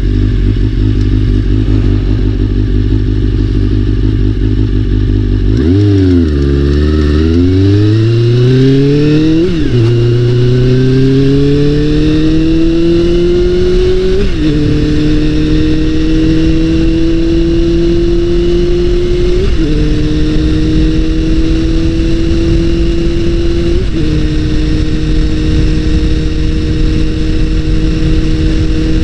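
Honda CBR400RR inline-four engine running steadily, then dropping in pitch about six seconds in before pulling away. It climbs in rising pulls, each ending in a sudden drop in pitch, four times as it shifts up through the gears.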